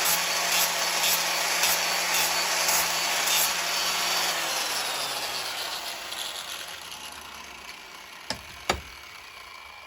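Power grinder with a flap disc working a steel spanner, with a rasping stroke about twice a second. About four seconds in the grinding stops and the motor winds down, its hum sinking in pitch and fading, followed by two sharp clicks near the end.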